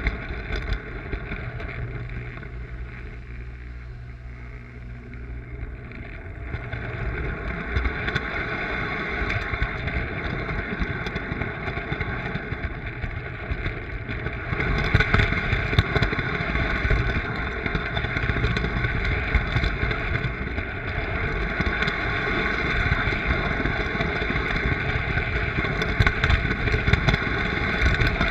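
Lionel toy train running on three-rail tinplate track: a steady electric motor hum and wheel rumble with scattered clicks from the rails. It dips briefly a few seconds in, then grows louder about halfway through.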